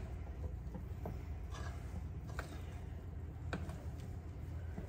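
Thick Bisquick dumpling dough being stirred in a glass batter bowl: faint scraping with a few light taps of the utensil against the glass, about one a second, over a low steady hum.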